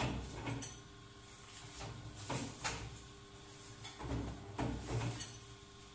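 Double-die paper plate machine at work: a steady low hum under a series of clunks and clatters at irregular intervals, as the dies press and the paper plates are handled.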